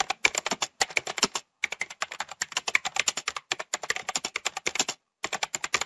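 Keyboard typing sound effect: rapid key clicks, about eight to ten a second, with a few short pauses, keeping time with text typed out on screen.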